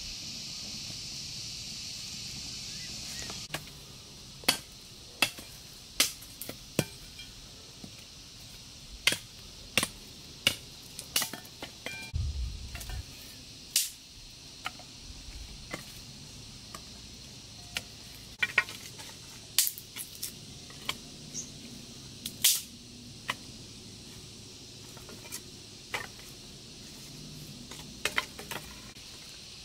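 A steady high hiss, then after a few seconds a string of sharp knocks and clicks at uneven intervals, roughly one a second, with a short low thump a little before the middle.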